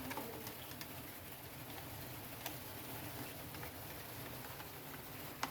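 Faint scattered clicks and taps of a chainsaw's guide bar and chain being worked by hand onto the chain-tensioner pin, with one sharper click near the end.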